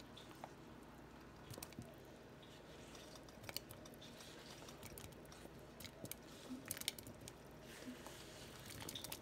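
Potato chunks sliding off a plate and dropping into simmering soup broth: faint soft plops and small splashes with scattered light clicks, over a low steady hum.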